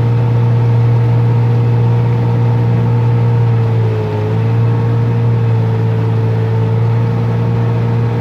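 Outboard motor driving a small open boat at a steady cruise: a loud, even drone. Its pitch dips briefly about four seconds in, then settles back.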